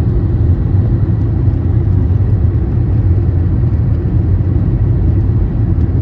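Steady low rumble of a car driving along.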